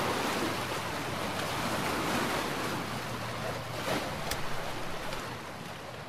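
Steady rushing wash of sea surf, surging gently and fading toward the end, with one brief click about four seconds in.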